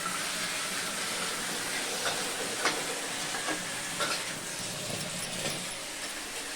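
Steady hissing and sizzling of a pan of herbal kadha simmering on the stove, with a few faint light clicks.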